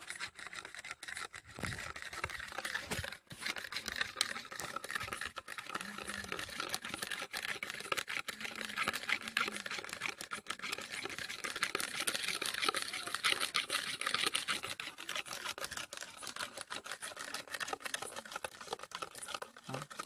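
Steel spoon whipping instant coffee, sugar and hot water in a bowl for dalgona coffee: rapid, continuous clicking and scraping of the spoon against the bowl. The mixture is still thin and dark, early in the long whipping.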